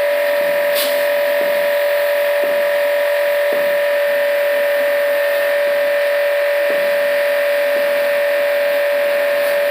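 Small electric pressure-washer pump running with a steady high whine over a hiss of spray. It cuts off right at the end and starts again a moment later.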